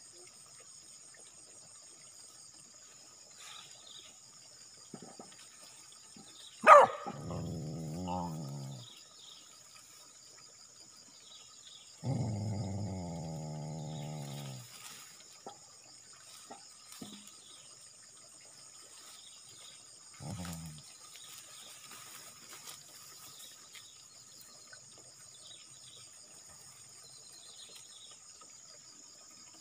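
A dog barks once sharply, then makes a low, drawn-out growl. A longer growl comes near the middle and a short one later. Insects chirr steadily throughout.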